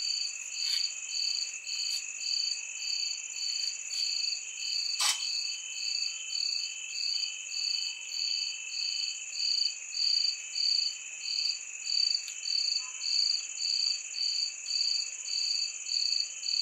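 Night chorus of crickets and other insects: steady high-pitched shrilling, with one caller repeating a pulsed chirp a little under twice a second. A single sharp click about five seconds in.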